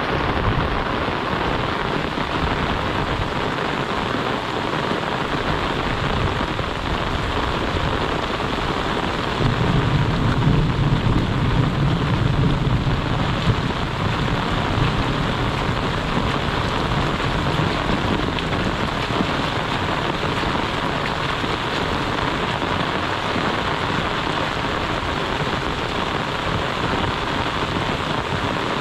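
Heavy monsoon rain falling steadily. A low rumble swells for a few seconds about ten seconds in.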